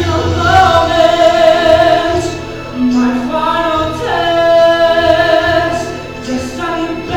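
A male solo singer performing a Broadway ballad, holding long notes with vibrato over backing music.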